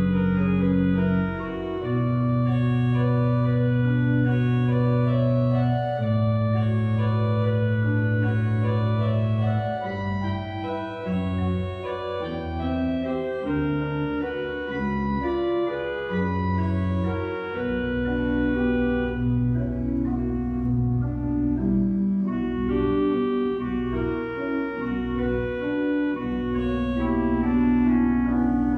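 Eisenbarth pipe organ playing full chords over a pedal bass. Long held chords for the first ten seconds or so give way to quicker changing notes, and a deeper bass comes in a little past halfway.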